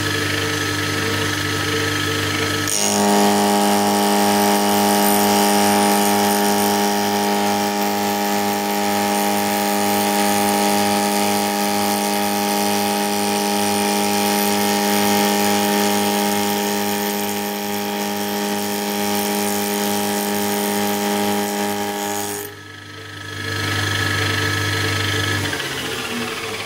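Homemade end mill with two APMT carbide inserts milling a shoulder in cold-rolled steel on an old milling machine: a steady, loud, multi-toned whine over the spindle's low hum. The whine cuts off suddenly near the end as the cutter leaves the cut, and the spindle runs on and then fades.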